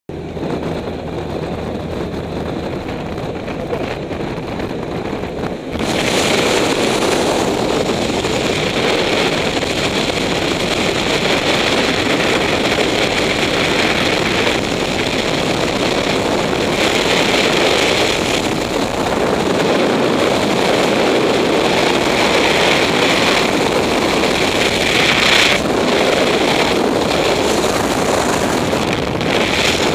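Steady engine drone inside a small jump aircraft's cabin. About six seconds in it gives way suddenly to loud, even wind rush on the microphone: the jumper has left the plane and is in freefall.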